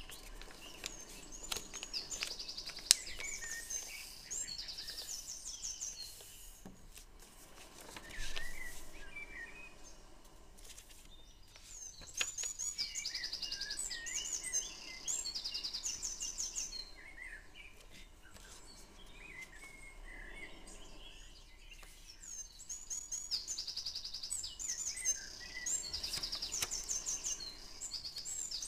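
Songbirds singing in repeated phrases of fast, high trills and chirps, coming and going every ten seconds or so, over a faint background hiss. Soft rustles and crisp clicks of paper being folded and creased are mixed in, with one sharp click about three seconds in.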